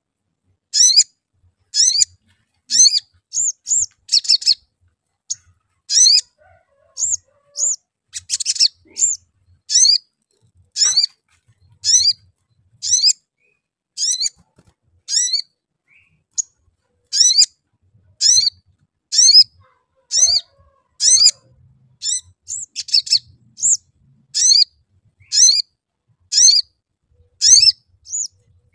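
Male olive-backed sunbird calling: short, sharp, high 'cuit' chirps, about one a second, sometimes two or three in quick succession.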